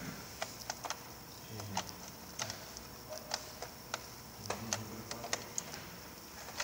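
Short sharp plastic clicks and taps at irregular intervals, about one or two a second, as small parts are handled and pressed into stacked black plastic trays by hand.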